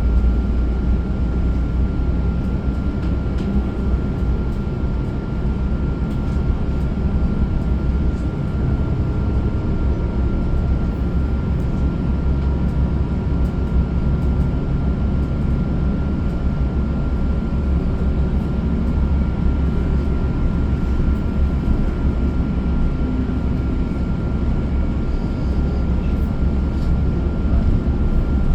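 Inside a moving transit bus: steady low rumble of the bus's drivetrain and tyres on the road, with a faint steady high whine above it.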